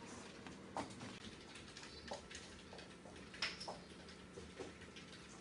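Faint, scattered light clicks and taps, the loudest about three and a half seconds in, over a faint steady hum.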